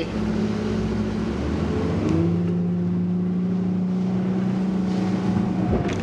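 Bass boat's outboard motor running at speed. Its pitch steps down about two seconds in, then holds steady.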